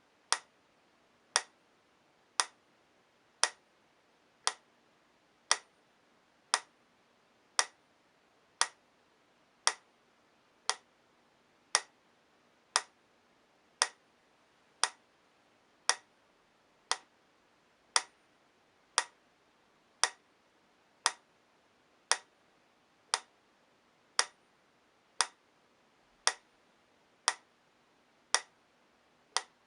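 PRIM metronome clicking steadily at 58 beats per minute, one sharp, even tick about every second.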